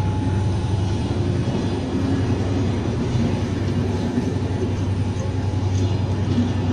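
Passenger train coaches rolling past close by: a steady rumble of steel wheels on the rails, with a strong low hum and no breaks or sudden knocks.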